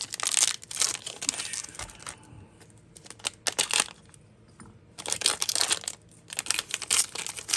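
Crinkling of a hockey card pack's wrapper as it is handled, in clusters of rustling with quieter gaps between.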